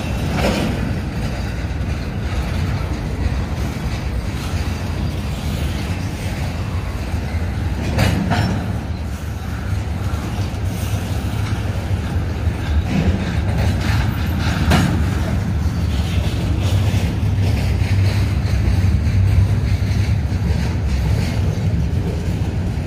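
Union Pacific double-stack intermodal freight train rolling past: a steady rumble of steel wheels on the rails, with a few louder clanks about half a second in, about eight seconds in and about fifteen seconds in.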